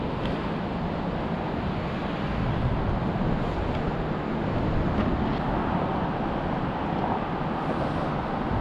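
Steady rushing wind buffeting the GoPro's microphone, with a strong low rumble and no clear events.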